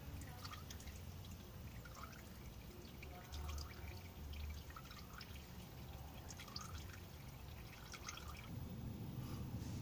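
Faint trickle of used engine oil draining from the oil filter housing into a drain pan, with scattered drips: the housing is nearly empty.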